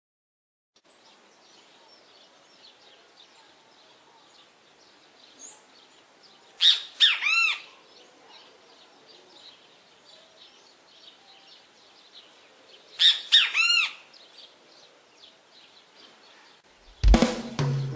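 Great kiskadee (bem-te-vi) giving its loud call twice, about six seconds apart. Faint bird chirping runs underneath. Music comes in loudly near the end.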